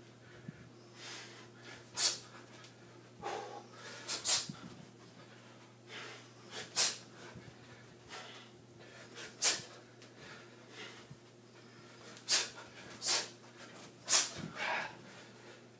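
Sharp, hissing exhales from a man training on a freestanding punching dummy, one short burst with each strike. There are about eight of them, spaced irregularly a second or more apart.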